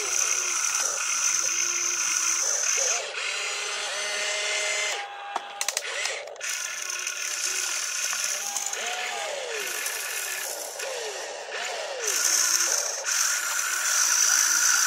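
Electric gear motors of an RC excavator whining as the boom, arm and bucket move, their pitch rising and falling as each motion starts and stops. A short cluster of sharp clicks and rattles comes about five seconds in.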